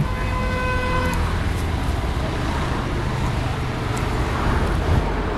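A vehicle horn sounds once, a steady toot of about a second at the start, over steady road traffic noise.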